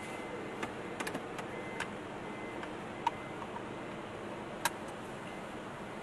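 Car seat belt being pulled across and buckled: scattered small clicks and rattles of the belt and its metal tongue, with one sharper click a little before the end as the latch engages, over a steady low hum.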